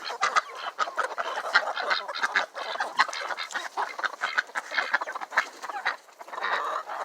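A flock of chickens clucking and squawking in a dense, overlapping clamour of short, sharp calls.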